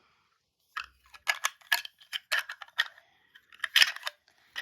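Irregular run of sharp clicks and snaps from plastic toy parts and packaging being handled, some in quick clusters.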